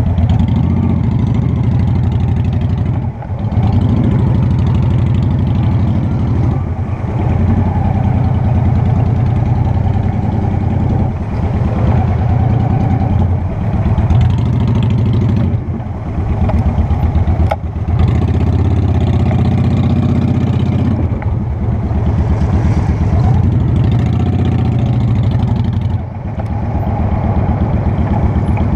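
Honda Shadow Spirit 750's V-twin engine running under way, its note dipping briefly every few seconds and picking up again.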